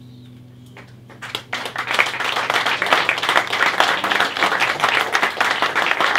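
The last chord of a small acoustic band (guitar, oud and double bass) rings out, and about a second in an audience breaks into loud, dense applause that carries on.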